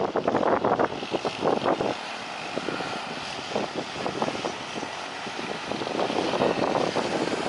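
Propeller aircraft engines running steadily, overlaid with gusty wind buffeting the microphone.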